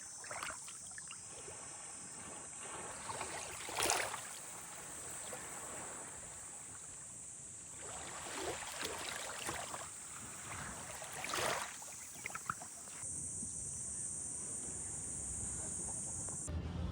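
Outdoor ambience: a steady high-pitched insect drone, with a few brief whooshing swells, the loudest about four seconds in.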